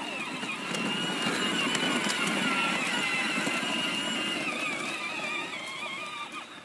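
Electric motor and gearbox of a battery-powered John Deere ride-on toy tractor whining steadily as it drives, with its plastic wheels rolling over concrete and grass. The whine fades near the end as the tractor moves off.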